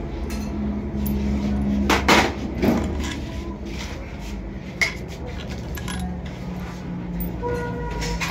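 Metal tools and small engine parts clinking and knocking on a workbench, with a cluster of sharp knocks about two seconds in and another single knock near five seconds, over a steady low hum.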